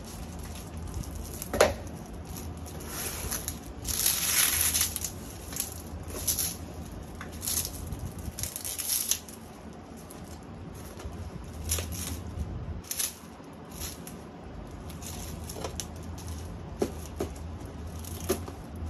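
Thin black plastic bag rustling and crinkling in irregular bursts as it is pulled open and flattened and a cardboard box is slid inside, with a sharp click about a second and a half in.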